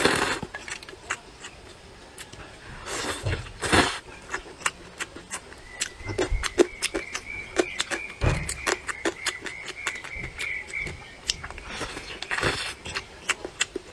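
A person slurping vermicelli noodles three times, at the start, about three seconds in and near the end. Wet chewing and lip smacks come in between.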